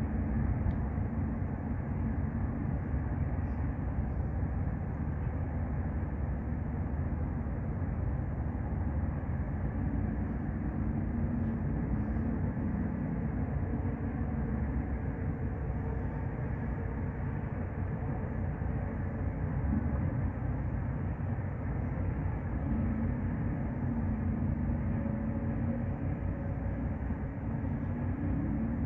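Steady low machinery rumble with a hum that wavers slightly in pitch.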